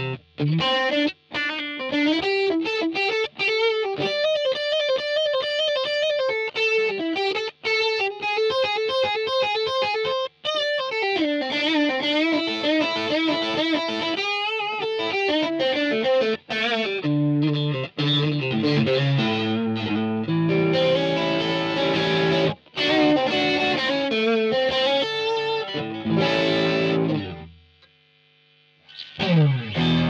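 Swing P-2S electric guitar played through an overdrive patch on a Line 6 POD HD500: fast single-note lead lines with string bends and vibrato, then heavier lower chords from a little past the middle. Near the end the playing stops for about a second and a half, then starts again.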